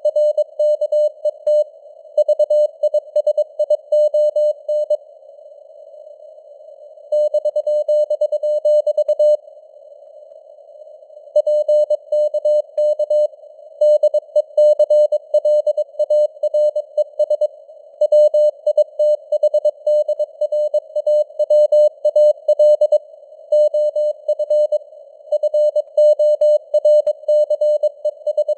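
Morse code sent at 22 words per minute: a single mid-pitched tone keyed on and off in dots and dashes over a narrow band of simulated radio receiver noise. The keying stops twice for about two seconds, about five and ten seconds in, leaving only the hiss.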